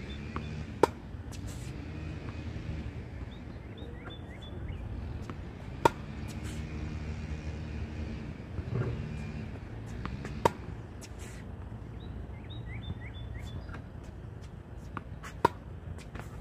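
Tennis racket striking balls: four sharp pocks about five seconds apart, each with a short ringing ping. Under them runs a steady low engine drone, with birds chirping now and then.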